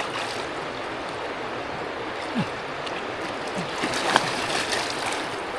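Mountain stream water rushing steadily, with a couple of sharp clicks on top, the loudest about four seconds in.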